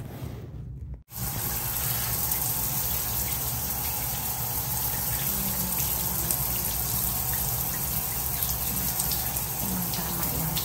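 Shower running: a steady spray of water that starts suddenly about a second in.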